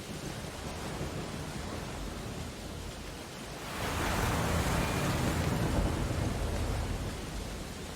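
Ocean surf: a steady wash of noise, with a wave breaking a little before halfway through and washing out over the next few seconds.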